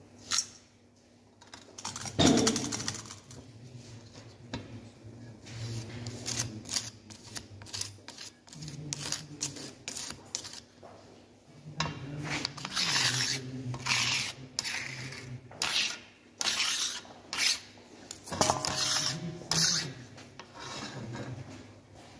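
Steel spatula scraping moist soil out of a stainless-steel bowl and pressing it into a metal soil mould to compact it: irregular runs of scrapes and light knocks, with the loudest strike about two seconds in.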